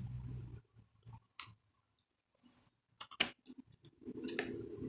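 Graphics card's cardboard retail box being opened by hand: a few sharp clicks, the loudest about three seconds in, then low handling noise near the end.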